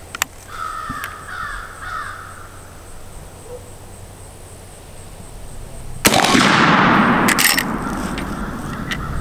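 A single shot from a Marlin 1895 lever-action rifle in .45-70 Government loaded with black powder, about six seconds in: a sharp crack followed by a long echo rolling away. About a second later come two sharp metallic clicks of the lever being worked. Before the shot a crow caws a few times.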